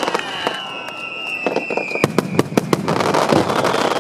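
Fireworks going off over the water: many sharp bangs and crackles in quick succession, thickest in the second half, over a steady hiss. A high whistling tone slides slowly down in pitch through it.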